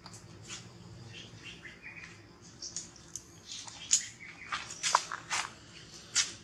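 A run of short, high chirps and squeaks from animals, with the loudest calls a little past the middle and near the end.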